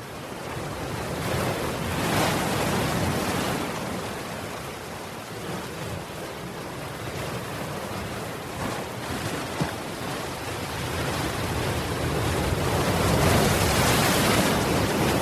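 Ocean surf: waves breaking and washing in over a seawall. The rush swells about two seconds in and again, louder, near the end.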